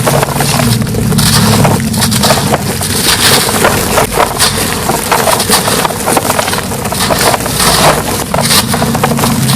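Dry, dusty white concrete chunks being crushed and crumbled: a dense run of crunching and crackling, over a low steady hum.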